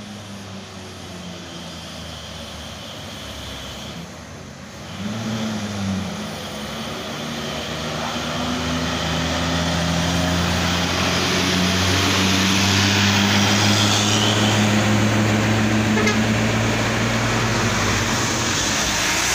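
Tour coach's diesel engine pulling hard up a steep hill: a steady low drone that dips and rises in pitch briefly about five seconds in, then grows louder as the coach approaches and passes.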